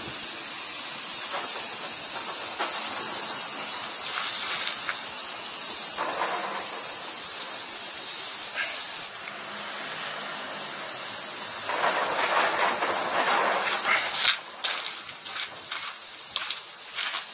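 Steady, high-pitched insect chorus. A towel rustles in bursts as it is rubbed over the wet animal, and a few sharp crunches of footsteps on gravel come near the end.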